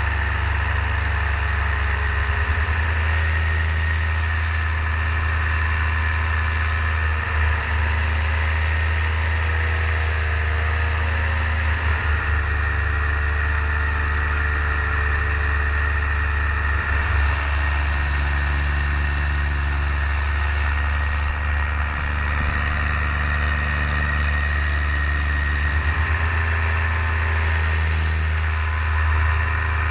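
Paramotor engine and propeller running steadily in flight, a constant low drone with a steady high whine over it.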